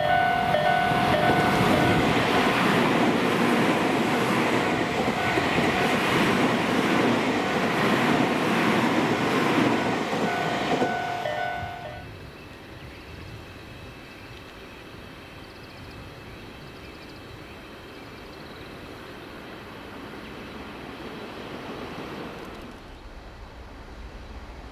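A Tobu 50090 series electric train passing at speed, its wheels rushing loudly on the rails, with a steady ringing tone alongside. About twelve seconds in, the sound cuts to a much quieter rumble that slowly grows as another train approaches in the distance.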